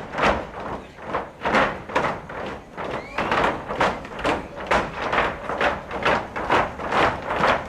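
Folk dancers' zapateado footwork: shoes and boots striking the stage floor together in a steady rhythm of about three stamps a second.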